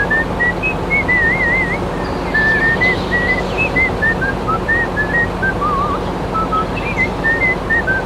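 A whistled tune: a single clear melodic line hopping between notes, with several wavering trills, over a steady low hum and hiss.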